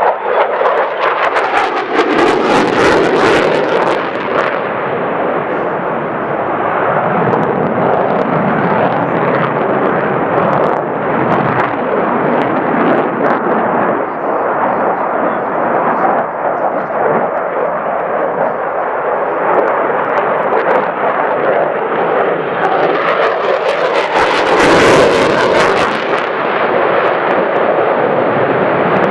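Boeing F/A-18F Super Hornet jet fighter roaring through a display flight with its twin turbofans. The noise is loud and continuous and swells to its loudest as the jet passes close, about two seconds in and again about 24 seconds in.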